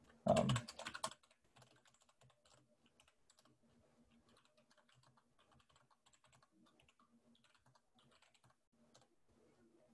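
Computer keyboard typing, louder in the first second, then a long run of faint, irregular keystrokes as a terminal command is typed out.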